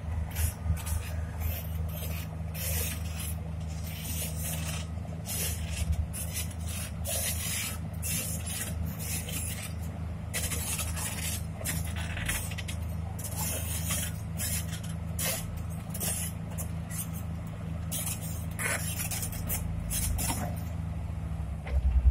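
Diesel engines of crawler pipelayers running steadily at a low, even pitch, with an irregular crackling hiss over them. Right at the end an engine gets much louder as it revs up.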